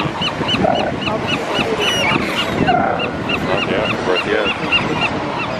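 Gulls calling in a rapid run of short high notes, about four a second, stopping about three and a half seconds in, over the steady wash of surf.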